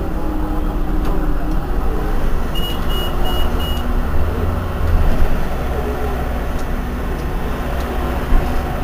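Irisbus Iveco Citelis 18 articulated bus engine idling with a steady low rumble while the bus stands still. About two and a half seconds in, four short high beeps sound in quick succession.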